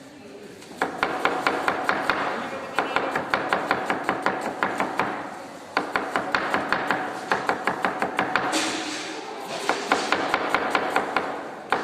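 Kitchen knife rapidly chopping vegetables on a cutting board: fast, even runs of sharp taps, several a second, broken by brief pauses.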